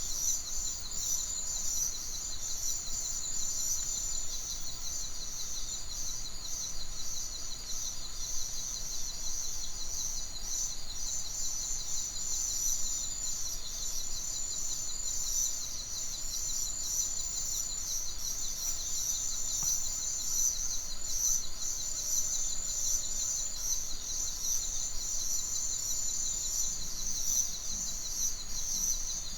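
Outdoor nature ambience: a continuous high-pitched trilling chorus that pulses rapidly and evenly without a break, with bird chirps mixed in.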